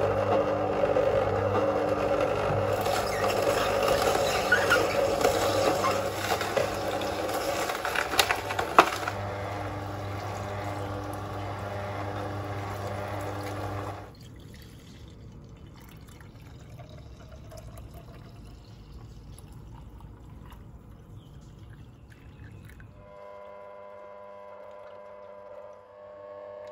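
Kuvings C7000 slow juicer running: a steady motor hum under the noise of produce being crushed and juice pouring into the jug, with a few sharp cracks about eight or nine seconds in. About 14 seconds in it drops much quieter, and near the end a steadier hum with several held tones comes in.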